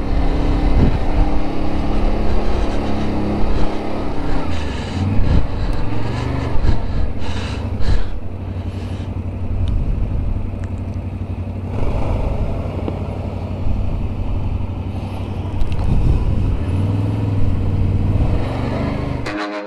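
ATV engine running steadily, with scattered knocks over it; the sound cuts off suddenly near the end.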